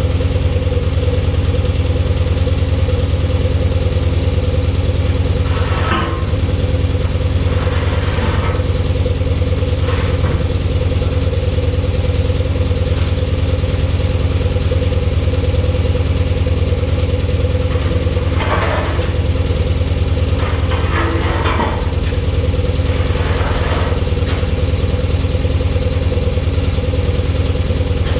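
Grove Stevedore mobile crane's propane-fuelled Onan engine idling steadily, with a few short scuffs and clatters over it.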